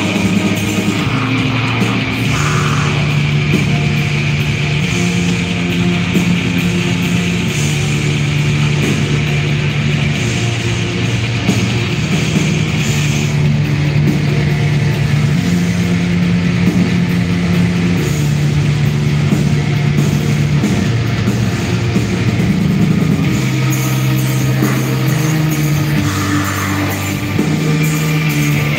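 A black metal band playing live at full volume: dense distorted guitars and drums under long held low notes that change pitch every second or two, heard from within the audience.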